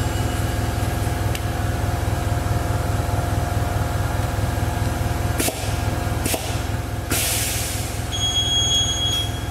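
Hunter GSP9700 Road Force balancer running a measurement spin with a steady motor hum and drone. About five and a half seconds in come two knocks, then a short hiss as the spin ends and the hood lifts, and near the end the machine gives a beep lasting about a second.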